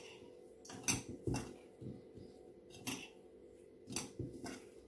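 Boiled potatoes being mashed by hand in a small stainless-steel bowl: a handful of light, scattered knocks and clinks against the steel.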